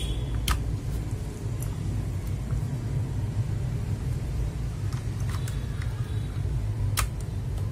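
A steady low rumble underneath a few sharp, isolated clicks of mechanical keyboard keys being pressed, one about half a second in, a couple around five seconds and one near the end.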